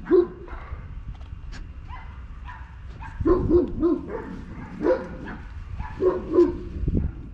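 A dog barking several times, in quick runs of two or three barks.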